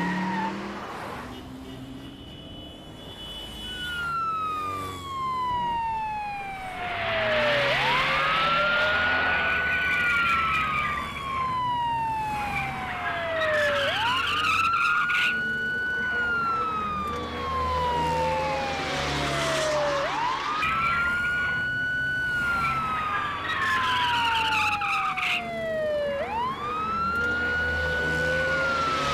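Police car siren in a slow wail: a quick rise, then a long falling sweep, repeating about every six seconds from about four seconds in.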